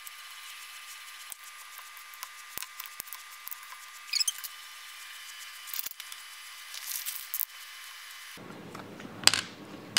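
Faint clicks and soft handling noises of food being laid by hand onto a plate, over a thin steady hiss. A sharper click comes near the end as a knife cuts cheese on a plastic cutting board.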